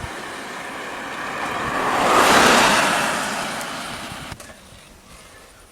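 A road vehicle passing close by, its tyre and engine noise swelling to a peak and fading away, then cut off abruptly near the end.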